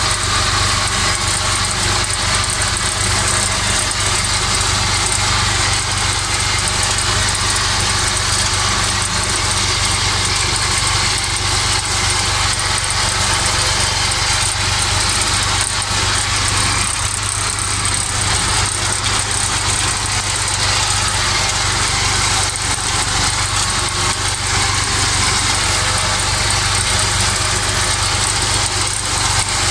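IMT 539 tractor's three-cylinder diesel running steadily under load while its PTO-driven Kuhn mower cuts tall grass, with a constant engine drone under the whir and rattle of the mower.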